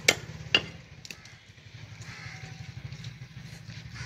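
A small engine idling with an even low throb. Two sharp clicks about half a second apart come near the start.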